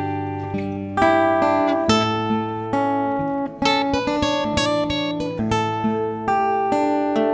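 Background music: an acoustic guitar playing plucked and strummed chords, with a new chord struck about every second.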